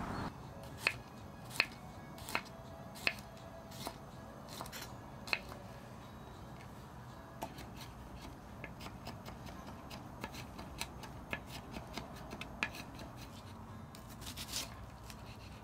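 Kitchen knife chopping onion on a wooden cutting board: sharp single chops about every three-quarters of a second at first, then lighter, quicker chopping, a few strokes a second, from about seven seconds in.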